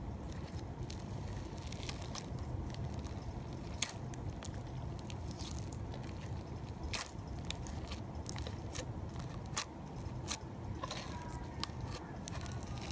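Pink floam, slime packed with tiny foam beads, being pressed and squished by fingers, giving irregular crackling clicks and pops over a steady low hum.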